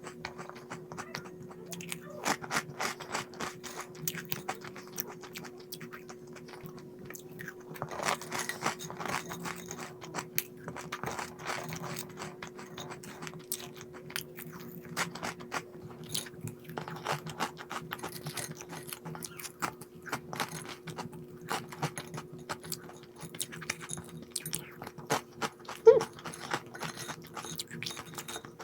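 A person crunching and chewing crisp snacks close to the microphone, in dense, irregular crackles. A steady low hum runs underneath, and a single sharp knock comes near the end.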